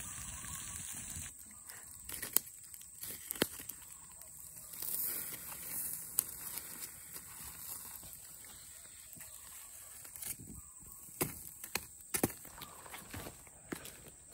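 A steady hiss that stops about a second in, then scattered clicks, scrapes and crinkles as a stick digs a foil-wrapped parcel out of the ashes of a ground-pit fire.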